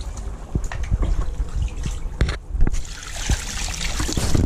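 Liquid trickling and splashing, with several sharp knocks scattered through it.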